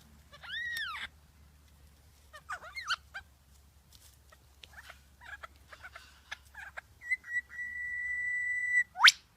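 Bird calls: an arched whistled note, a quick run of chattering notes, scattered chirps, then a long steady whistle held for nearly two seconds and a fast rising sweep near the end.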